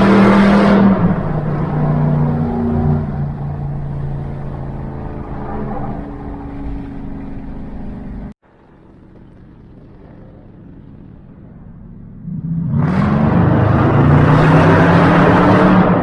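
Loud muffler-less car exhaust. It starts loud and fades over several seconds, cuts off suddenly about eight seconds in, runs quietly, then rises into a loud rev or acceleration about twelve seconds in.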